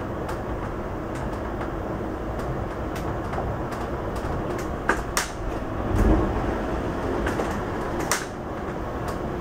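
Stockholm metro train running at speed, heard from inside the passenger car: a steady rumble of wheels on rails, with a few sharp clicks about five and eight seconds in.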